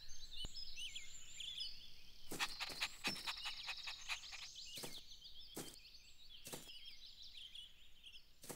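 Cartoon garden ambience of birds chirping, with a few short, sharp breathy puffs from a puppy panting, starting about two seconds in and recurring every second or so.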